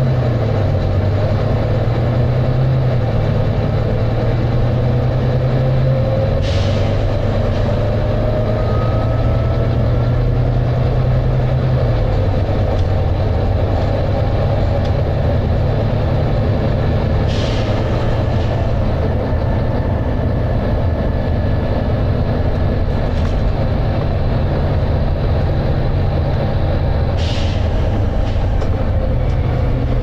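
Volvo B9TL double-decker bus heard from inside the passenger saloon, its diesel engine working hard at road speed, with the engine note dropping slightly twice. Three short hisses of air from the bus's air system come about ten seconds apart.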